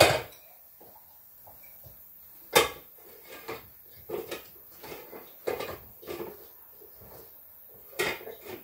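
Dishes, pots and utensils clattering: a sharp knock at the start and another about two and a half seconds in, then a string of lighter, irregular clinks and knocks.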